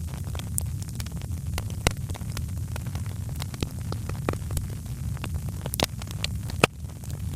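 Wood fire burning in a fireplace: a steady low rumble with irregular sharp crackles and pops scattered throughout.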